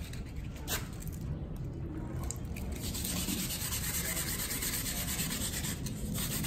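Hand rubbing the stainless steel shell of an aftermarket muffler with a small abrasive pad to work out scratches. It is a fast, scratchy rubbing that starts about three seconds in and keeps on steadily.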